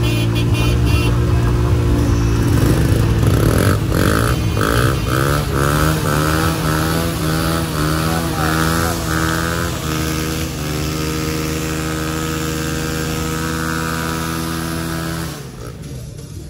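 Vehicle engine running loud and being revved, its pitch rising and falling repeatedly for several seconds, then held steady. It drops off sharply near the end.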